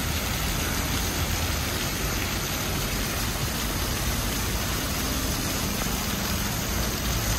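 Water from a public fountain's jets falling and spilling over the rim of a stone platform into the basin, giving a steady splashing hiss.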